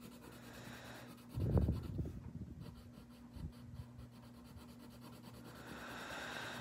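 Coloured pencil scratching softly on paper, pressed hard while shading in small strokes, with a brief low thud about one and a half seconds in.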